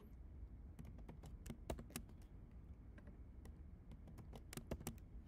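Faint typing on a computer keyboard: irregular clicking keystrokes as lines of code are entered.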